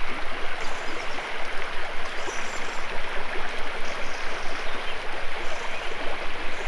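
Small stream of running water flowing and babbling steadily.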